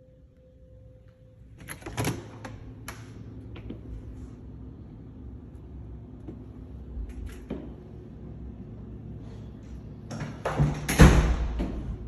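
An apartment's entry door being handled and opened: scattered sharp clicks and metallic rattles, with a louder cluster of knocks and rattling near the end.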